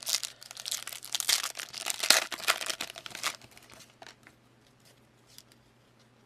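A trading card pack's wrapper crinkling and tearing as the pack is opened, a dense crackle that dies away after about three seconds into faint ticks of cards being handled.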